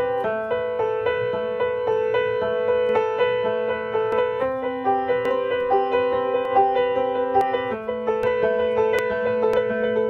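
Background piano music: a gentle melody of sustained notes over a steady bass note.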